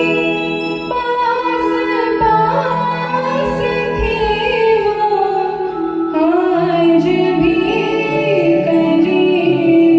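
A woman singing a slow Hindi film song with a gliding, ornamented melody over held instrumental accompaniment.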